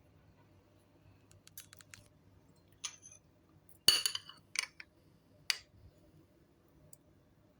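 Metal spoon clinking against a soup bowl while the soup is eaten: a few light taps first, then about five sharp ringing clinks, the loudest about four seconds in.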